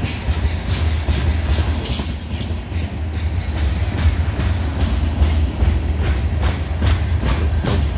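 Freight train tank cars rolling past close by: a steady low rumble of wheels on rail, with repeated clicks as the wheels cross rail joints, coming thicker in the second half.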